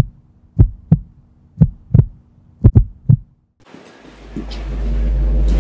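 Heartbeat sound effect: deep double thumps about once a second, coming quicker near the end. After a brief silence a low steady drone swells in from about four seconds in.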